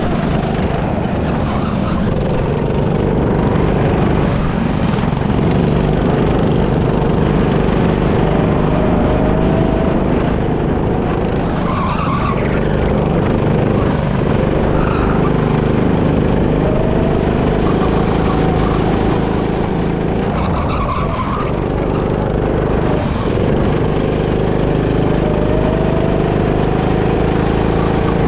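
Onboard sound of a go-kart lapping a tight track: the motor runs steadily, its pitch rising and falling with speed through the corners, with short tyre squeals about twelve, fifteen and twenty-one seconds in.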